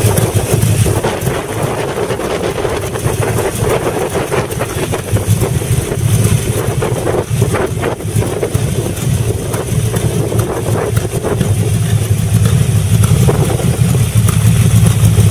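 A 5000 cc Ford V8 engine in a custom Kannon motorcycle, running through open chrome headers. The exhaust note swells in a few stretches and grows a little louder near the end.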